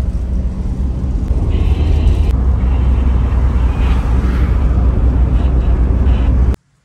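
Steady loud rumble of a taxi driving at highway speed, heard from inside the cabin: road and engine noise. It cuts off suddenly near the end.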